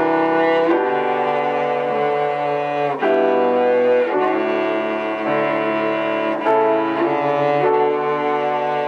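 Instrumental music of slow, sustained chords that change about once a second, with no singing.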